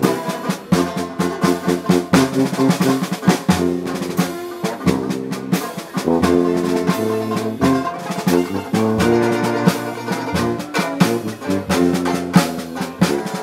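Live Dixieland jazz band playing: trombone, tuba and strummed banjo, with held brass notes over busy percussion hits.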